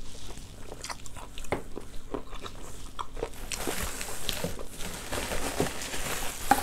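Edible chalk being bitten and chewed in a person's mouth, a run of sharp dry crunches. Plastic wrapping rustles from about three and a half seconds in.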